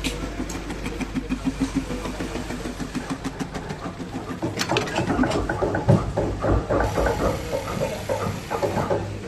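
Industrial pattern sewing machine stitching, a regular mechanical beat of about five stitches a second that turns louder and busier, with dense clattering, from about halfway.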